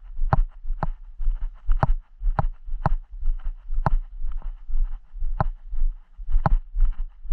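Footsteps crunching on a gravel path, walking downhill at about two steps a second, with a steady low rumble underneath.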